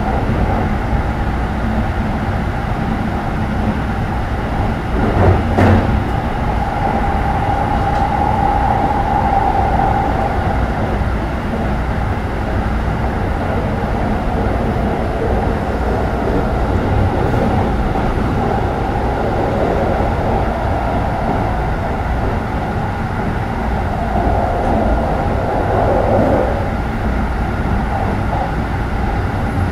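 Keikyu New 1000 series train with a Siemens GTO inverter, heard from inside the car while running between stations: a steady rumble of wheels on track under a whine from the traction motors. There is a sharp knock about five seconds in, and the whine sinks in pitch near the end.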